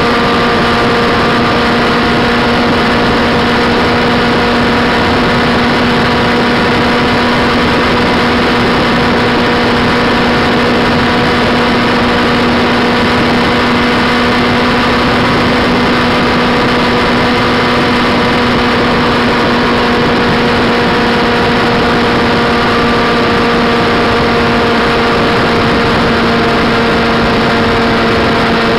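Motorcycle engine running at a steady cruising speed, its hum holding one even pitch throughout, under constant wind and road noise.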